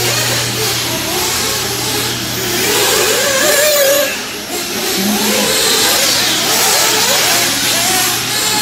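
Radio-controlled off-road race cars running laps on an indoor dirt track, several motors at once, their pitch rising and falling as they accelerate and brake, over a steady low hum.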